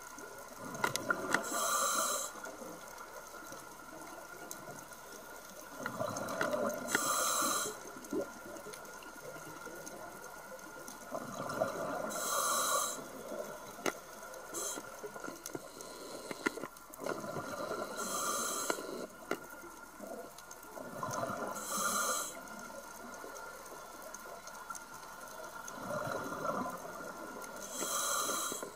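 Scuba diver breathing through a regulator underwater: about six breaths roughly five seconds apart, each a rush of bubbles ending in a short hiss, with scattered faint clicks in between.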